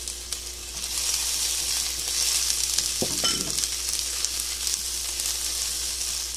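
Sliced onions and whole spices sizzling in oil and ghee in a non-stick pan, stirred with a silicone spatula. The crackling sizzle grows louder about a second in as the stirring starts, with a single knock about three seconds in.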